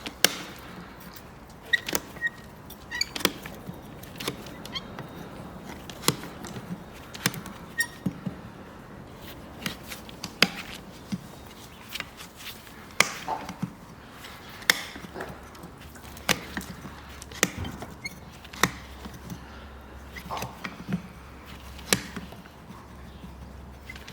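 Farrier's tools working a horse's hoof: a run of sharp, irregular snaps and knocks, one or two a second, some much louder than others.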